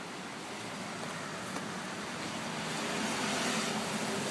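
A car on the road, its engine getting louder from about halfway in as it draws near, over a steady outdoor hiss.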